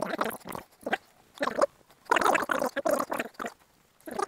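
A cloth duster being turned over and rubbed over the gloss-painted boiler of a miniature steam locomotive, making irregular rustling and rubbing strokes of varying length.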